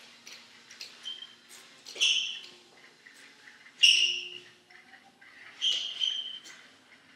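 Three high squeaks about two seconds apart, with fainter squeaks and ticks between, as the pacer gait-trainer walker and the walker's feet are moved step by step over a smooth tiled floor.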